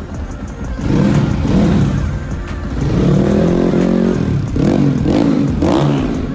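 Motorcycle engine being revved, its pitch rising and falling in several throttle blips, the later ones shorter, over background music.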